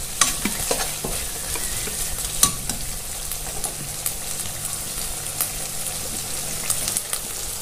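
Duck meat sizzling and frying in its own rendered fat in an iron kadai on a full flame: a steady hiss, with a few sharp clinks of a metal slotted spoon against the pan.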